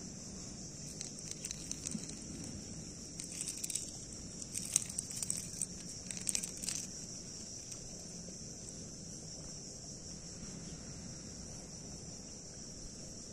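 Steady high-pitched insect chorus, with scattered soft clicks and crackles from hands handling a plastic fishing lure and line close to the microphone between about one and seven seconds in.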